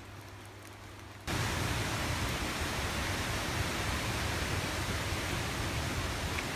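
Steady rush of the River Clyde pouring over white water, starting abruptly about a second in after a quieter stretch.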